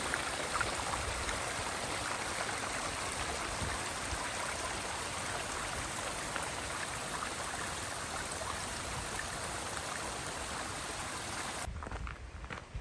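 Stream water rushing steadily. It cuts off abruptly near the end, leaving a much quieter background with a few faint clicks.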